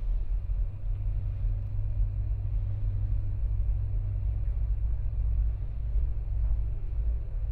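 Hitachi New Prido rope-traction elevator car travelling between floors: a steady low rumble with no chime or clear knocks.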